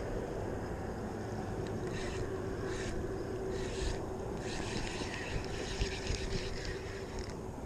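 A spinning fishing reel being cranked in short spells: a few brief rasps, then a longer stretch of reeling from about halfway in until near the end. Underneath sits a steady low rumble with a constant hum.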